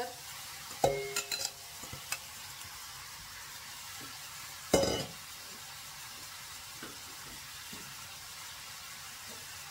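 Steel mixing bowl knocking and clinking against the rim of a metal cooking pot as chopped onions are tipped in, a cluster of knocks about a second in and one louder metal clank with a short ring near the middle, over a steady low hiss.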